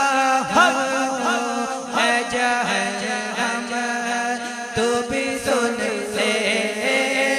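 A man singing a naat, an Urdu devotional song, solo into a microphone. His voice carries long, wavering, ornamented lines over a steady held drone note beneath.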